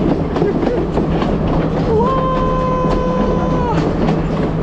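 Sri Lankan passenger train running, heard from an open carriage window, its wheels clattering over the rails. About two seconds in, a horn sounds one steady note for under two seconds, starting a little low and dropping off at the end.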